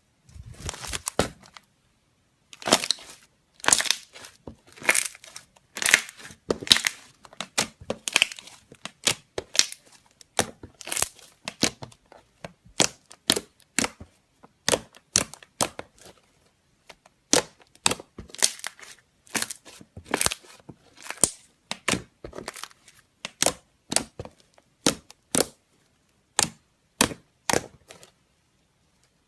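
Slime being squeezed and stretched by hand, giving crackly squelches and sharp popping clicks, about one or two a second. They crackle more early on and become single crisp pops later.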